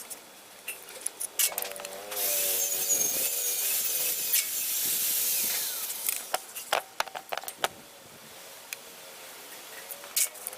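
Hand or tool work on engine parts: a steady, hissing scrape for about four seconds, followed by a run of sharp metallic clicks and taps.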